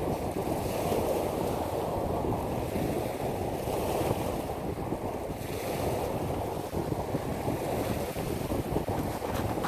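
Small waves washing onto a pebble beach, swelling and easing, with wind rumbling on the microphone.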